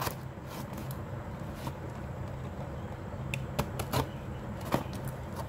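A plain cardboard box being handled and opened: scattered light taps, clicks and scrapes, a cluster of them in the second half, over a steady low hum.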